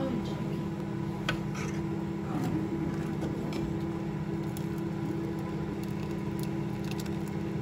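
Steel ladle stirring a pot of simmering rasam, clinking now and then against the steel pot, over a steady hum.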